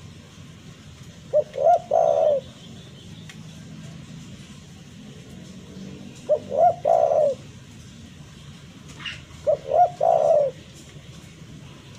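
Spotted dove (tekukur) cooing: three phrases about four seconds apart, each two short coos followed by a longer one. It is the dove's territorial call, used to provoke a rival.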